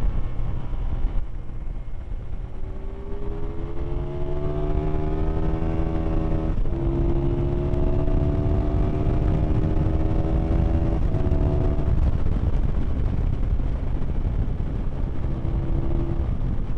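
Aprilia Tuono motorcycle engine heard from on board under hard acceleration. Its note rises through the revs and drops at upshifts about six and a half and eleven seconds in, over heavy wind rush on the microphone, which takes over near the end.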